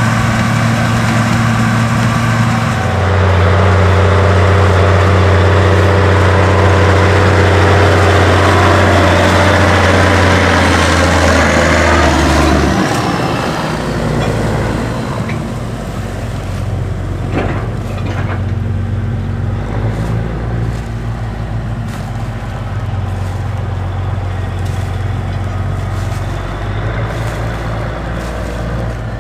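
Heavy diesel farm machinery running in a corn harvest. One engine grows louder about three seconds in and stays loud for about ten seconds, then drops away to a quieter steady running, with a single knock partway through.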